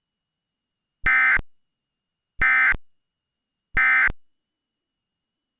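Emergency Alert System end-of-message signal: three short bursts of buzzing digital SAME data tones, about 1.3 seconds apart, marking the end of the alert.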